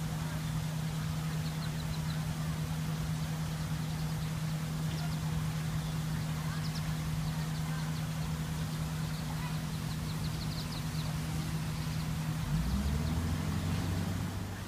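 Wood duck ducklings peeping faintly in short quick runs of high chirps, over a steady low motor hum that drops to a deeper pitch about twelve seconds in.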